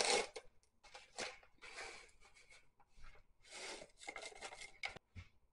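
Paper packets of instant oatmeal being torn open and the dry oats shaken out into bowls: a run of short, irregular rustling and tearing sounds.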